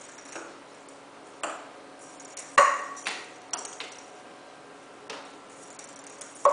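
A small plastic cat-toy ball being batted about and clacking on a hardwood floor: a string of about eight sharp knocks. The loudest comes about two and a half seconds in with a short ring, and another strong one near the end.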